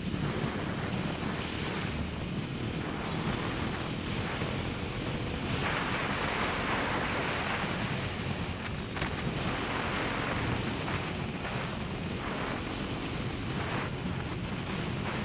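Wind rushing over the camera microphone of a Bajaj Pulsar NS200 motorcycle cruising at steady speed, with the single-cylinder engine running underneath. The wind noise grows louder for a few seconds about six seconds in.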